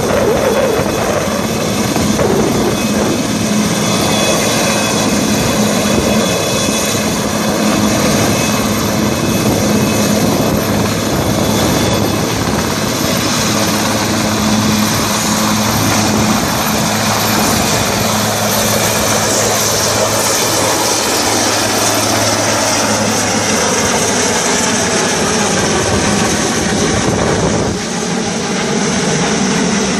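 Westland Sea King Mk42 helicopter's main rotor and twin turboshaft engines running loud and steady, with a low hum and a high turbine whine, as it hovers and climbs away carrying a jeep on an underslung sling.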